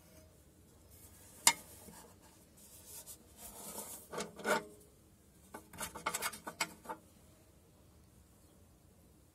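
Metal parts of an angle-grinder cutting stand being handled and adjusted: a sharp click about a second and a half in, then scraping and rubbing, then a quick run of small clicks and rattles.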